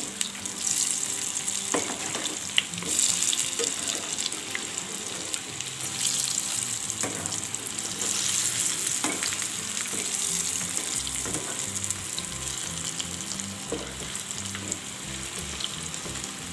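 Moong dal fritters (mangodi) sizzling steadily as they deep-fry in hot oil, being fried crisp on both sides. A steel slotted spoon turning them scrapes and taps against the pan now and then.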